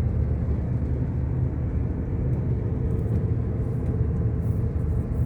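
Steady low rumble of a motor vehicle driving, engine and road noise without change.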